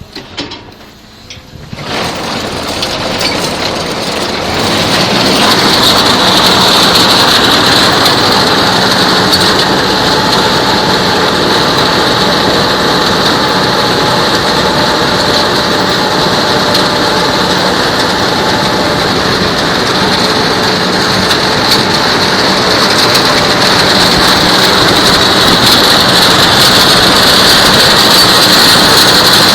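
Claas Arion tractor and Grimme SE 75-30 potato harvester at work: steady loud engine and machinery noise that starts about two seconds in, grows louder over the next few seconds, then holds steady.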